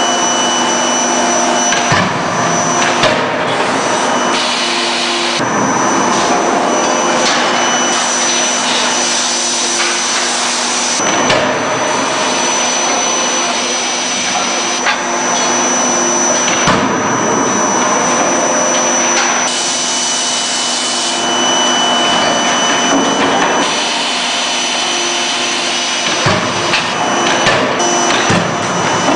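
A CNC forging hammer running in a forge, a loud, steady machine drone with a few high whining tones, broken by a handful of sharp knocks spread several seconds apart.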